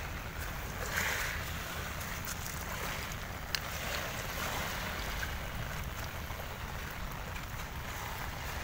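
Wind rumbling on the microphone over the steady wash of small waves lapping onto a shell beach.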